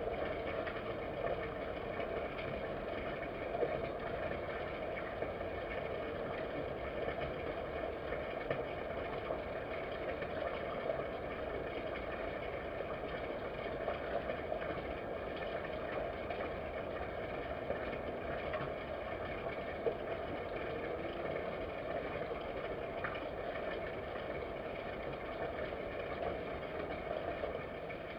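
Steady low hum and hiss of background noise with a few faint ticks.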